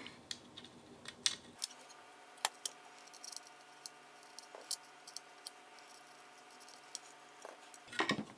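Scattered light clicks and taps as carbon-fibre drone frame plates and small spacers are handled and fitted together, over a faint steady hum.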